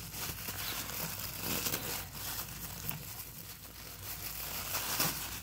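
Thin clear plastic bag crinkling with irregular crackles as hands handle a foam squishy toy inside it and work it out of the packaging.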